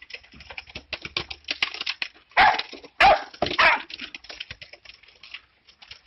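Small dog barking in a few sharp bursts, about two and a half seconds in and again around three to four seconds in, over a quick patter of small clicks.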